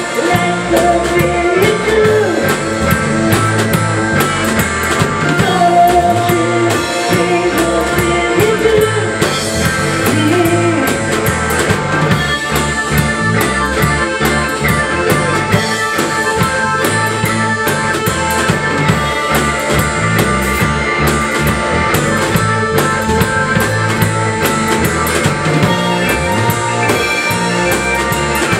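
Live rock band playing with a steady beat: electric guitar, bass guitar and drum kit, with keyboard.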